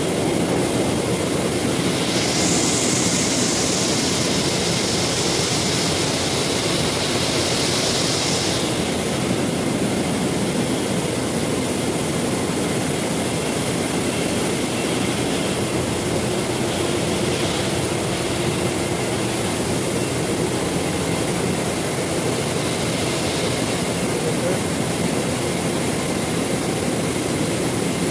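Steady running noise of HVAC machinery, an electric fan motor running continuously. A higher hissing rush is added from about two to eight and a half seconds in.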